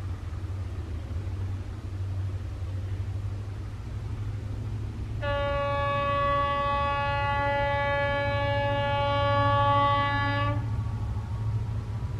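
Diesel freight locomotive approaching with its engine rumbling low throughout. About five seconds in it gives one long, steady horn blast lasting about five seconds.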